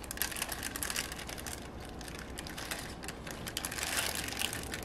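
Plastic zip-top bag handled and opened with nitrile-gloved hands: quiet crinkling with many small clicks, a little louder near the end.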